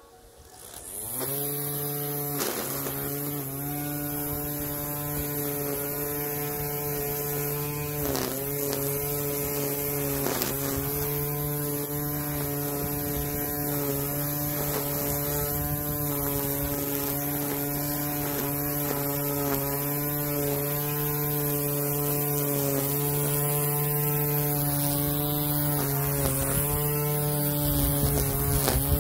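Electric string trimmer starting up about a second in and running with a steady hum while cutting grass, its pitch dipping briefly a few times.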